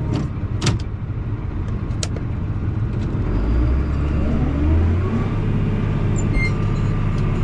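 John Deere 7810 tractor's six-cylinder diesel engine running under the cab, with a couple of sharp clicks in the first two seconds. About three seconds in, the engine comes up in load and speed with a rising whine, then settles into a steadier, louder run as the tractor sets off again.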